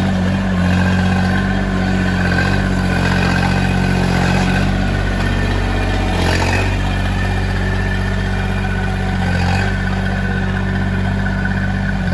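DW12 mini excavator's engine running steadily as the machine drives on its tracks, with a brief louder clatter about six seconds in.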